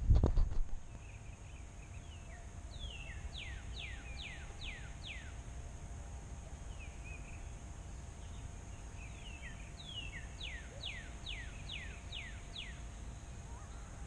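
A songbird singing two phrases: a few soft notes, then a run of five or six clear whistles, each sliding down in pitch. A few sharp knocks right at the start, over a steady low rumble.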